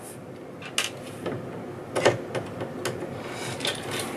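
Light clicks and taps of small parts and tools being handled as a portable computer's circuit-board assembly is taken apart: about half a dozen separate clicks spread through.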